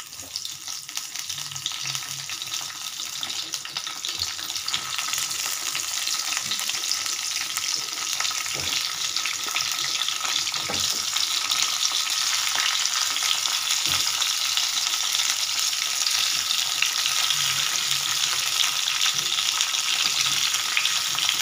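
Tomato halves and garlic cloves sizzling in hot oil in a small kadai. The sizzle builds over the first few seconds as the tomatoes go in, then holds steady. A few knocks sound as more tomato halves are set down in the pan.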